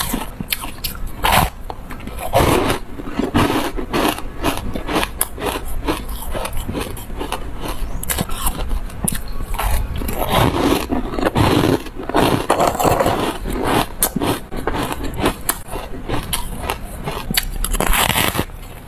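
Close-miked chewing and crunching of refrozen ice coated in dry buckwheat powder: a dense run of crackling crunches, with a louder bite into a block of ice near the end.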